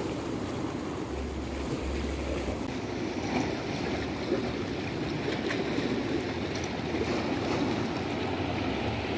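Sea waves washing steadily against jetty rocks.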